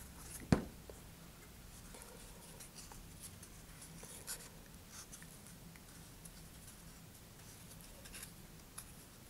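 Soft handling noise of fingers rubbing and turning a paper motor mount tube with its centering rings and shock cord: faint rustles and small clicks. One thump about half a second in is the loudest sound.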